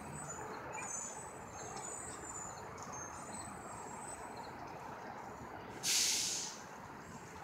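A school bus's air brakes let out a sudden loud hiss about six seconds in, lasting about half a second, over a steady low rumble of traffic and birds chirping.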